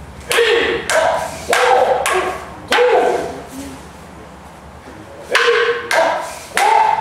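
Wooden practice swords (bokken) striking together in kenjutsu paired drills, each sharp clack joined by a brief pitched shout (kiai). Four strikes come in the first three seconds and three more in quick succession near the end.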